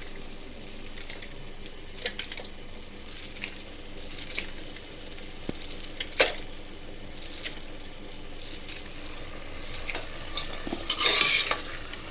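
A metal spoon stirring and scraping spice masala as it fries in a pan, with a low sizzle and irregular clinks against the pan. One sharp clink comes about six seconds in, and a louder burst of scraping near the end.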